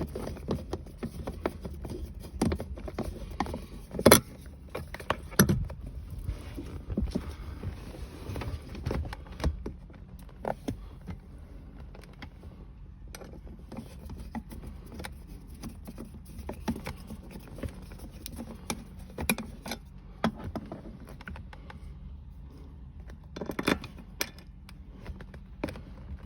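Scattered small metallic clicks and clinks of screws, tools and plastic console parts being handled while the armrest bar is screwed back in place. There are louder knocks about four and five and a half seconds in.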